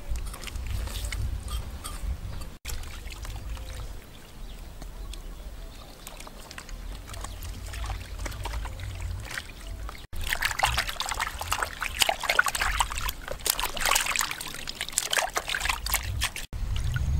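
Hands working skinned snakes in a plastic basin of water: wet sloshing and trickling. It gets louder and more splashy for the last several seconds.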